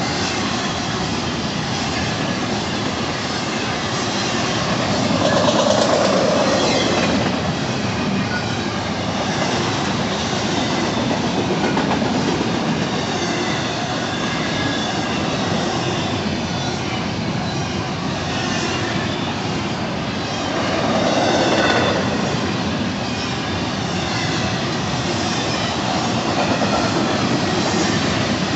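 Union Pacific intermodal freight train's cars rolling past, a steady rumble and clatter of wheels on the rails that swells louder twice, about five seconds in and again about twenty-one seconds in.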